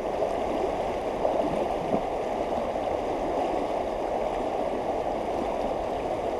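Creek water flowing steadily, an even rushing and gurgling of moving current.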